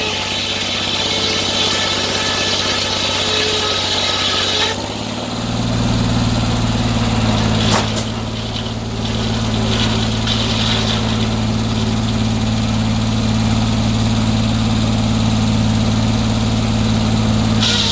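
Sawmill engine running steadily, with a high hissing cutting sound over it that stops about five seconds in. After that the engine runs on alone, with a single sharp click near the middle.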